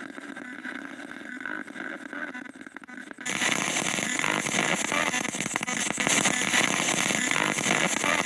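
Spirit box (radio scanner sweeping through stations) giving out rapid, choppy static, which jumps much louder about three seconds in. The ghost hunters hear the words 'ja för fan' in it.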